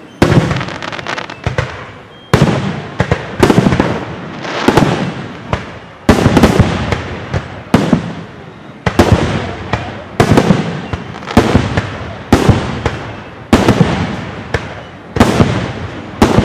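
Fireworks display going off in quick succession: loud bangs about once a second, each trailing away in an echoing rumble, with smaller pops in between.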